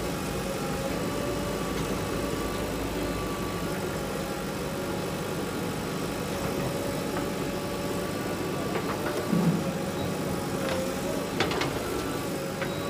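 Diesel engines of a JCB 3DX backhoe loader and a tractor running steadily at low revs while the loader works. A few short sharp knocks come about two-thirds of the way in and again near the end.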